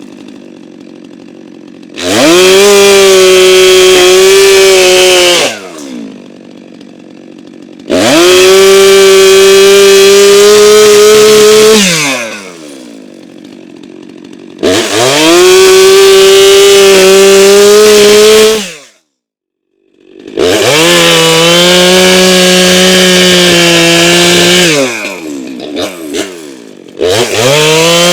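Stihl MS 462 C two-stroke chainsaw opened to full throttle in four bursts of about four seconds each, pitch rising quickly then holding, and dropping back to idle between them as it bucks a log.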